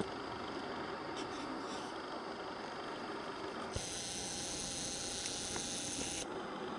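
A camera lens zoom motor whirs for about two and a half seconds, starting with a click about four seconds in and cutting off sharply, over a steady background hum.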